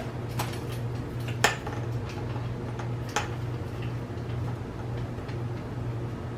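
A few sharp metallic clicks and knocks, the loudest about one and a half seconds in, as a bike frame is handled and set into a pipe-and-bar-clamp repair stand, over a steady low hum.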